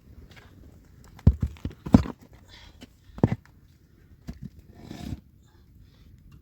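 A few dull, heavy thumps at uneven intervals, followed by a brief scraping rustle near the end.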